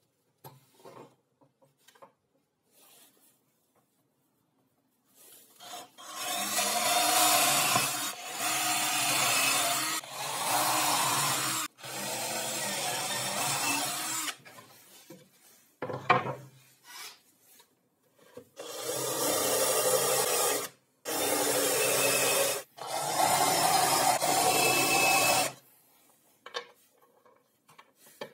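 Cordless drill boring holes through plywood in two groups of short runs, each lasting one to three seconds, after a few seconds of light handling clicks.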